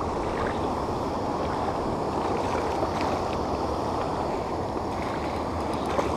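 Steady low rushing noise at the waterside, with a few faint ticks and no clear event standing out.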